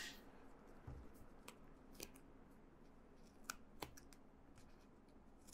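Faint snips of scissors cutting double-sided carpet tape: a few short, sharp clicks spread out over near silence.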